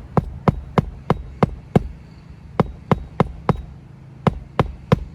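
Hammer driving roofing nails through an asphalt shingle: sharp blows about three a second, in three runs separated by short pauses, as the shingle is nailed back down.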